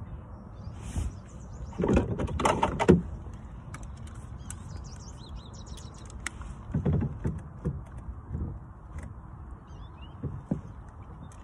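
Clattering and rustling handling noise from a fish lip-gripper scale being worked close to the microphone, loudest about two seconds in and again around seven seconds. Faint bird chirps come in near the end.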